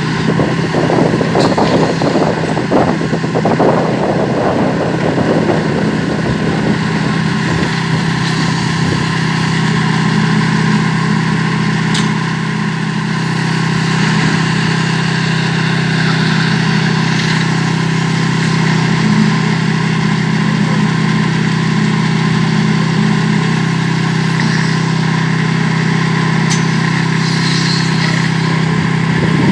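A small engine running steadily at one constant speed, with rough rattling and scraping over it for the first few seconds.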